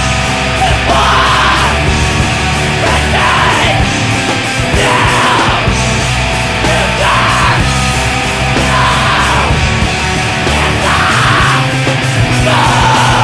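Hardcore punk/screamo song: loud, dense distorted rock with drums, and shouted vocal phrases about every two seconds.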